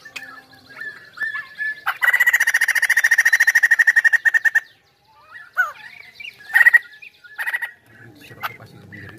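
White-crested laughingthrush (poksay hongkong) singing in full voice. A few short gliding whistles lead into a loud, rapid chattering run of about a dozen notes a second, about two seconds in, lasting over two seconds. Scattered whistles and short calls follow.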